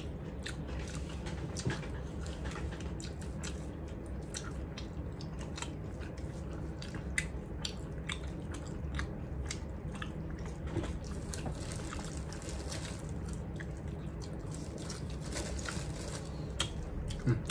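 Close-up eating sounds: mouth clicks and chewing as rice and curry are eaten by hand, with short irregular ticks of fingers working food on plates. A steady low hum runs underneath.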